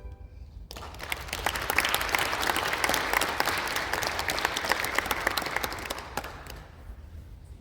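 Audience applauding, the clapping breaking out under a second in as the music ends and fading away near the end.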